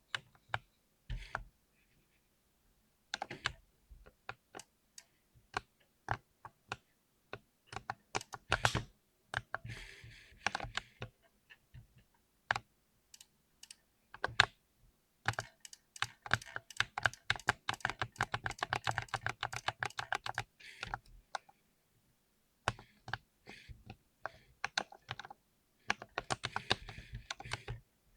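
Mechanical keyboard with Cherry MX Silver linear switches being typed on: scattered single keystrokes at first, then a long run of fast, dense typing around the middle and another near the end.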